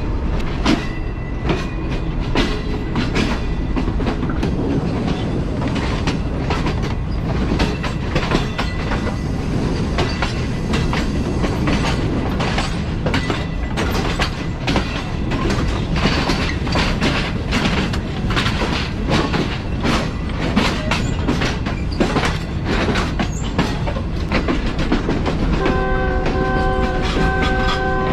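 Passenger train running, its wheels clattering over rail joints and points in a busy run of clicks. Near the end a train horn starts, a steady chord of several tones held on.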